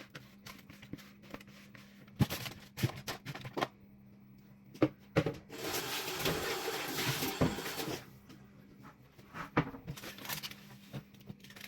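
Seasoned baby potatoes being placed into an oven tray: scattered light knocks and clicks, with a few seconds of scraping noise about halfway through, over a faint steady hum.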